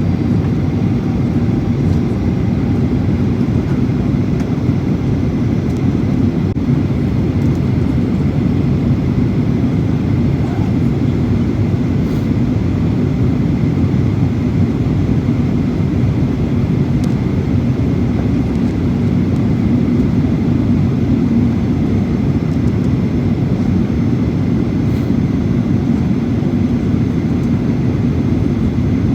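Steady roar of a jet airliner's engines and airflow on its landing approach, holding even with no rise or fall, with a faint high steady tone above it.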